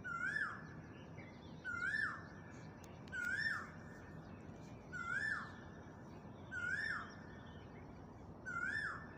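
A bird calling six times, evenly about every second and a half. Each call is a short note that rises, holds, then drops. A steady low hiss runs underneath.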